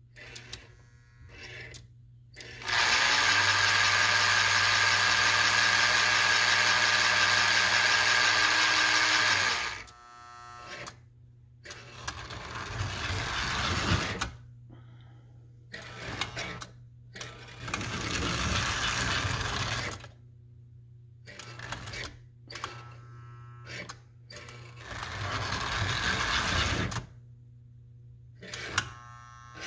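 American Flyer 290 Pacific toy steam locomotive's electric motor and gearing running, freshly serviced with new brushes: one steady run of about seven seconds, then a series of short runs broken by pauses as the power is switched on and off and the reverse unit changes direction. A low steady hum sits underneath.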